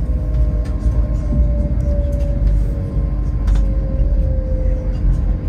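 Cabin sound of an LNER Azuma train running through a station: a heavy low rumble from the running gear, a steady whine that sinks slightly in pitch, and scattered sharp clicks from the wheels over the track.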